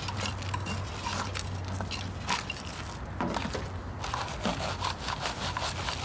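Gravelly soil and small stones being scraped and stirred, a dense run of gritty scrapes, crunches and clicks. A low steady hum sits under the first half.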